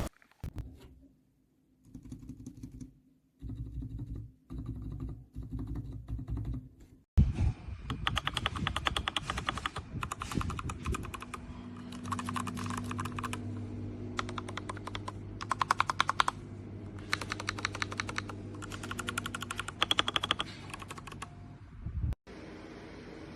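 Typing on a mechanical keyboard as a switch sound test: runs of rapid keystroke clicks in bursts, with short pauses between runs and a few abrupt cuts between takes.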